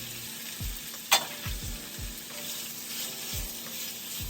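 Sliced onion and ginger-garlic paste sizzling steadily in hot mustard oil in a pan as they are stirred. There is a sharp clink about a second in and a few soft knocks from the stirring.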